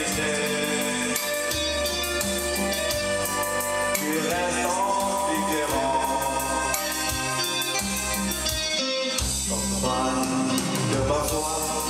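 Live amateur band music: a man sings a French chanson into a microphone, with electronic keyboard and electric guitar accompaniment.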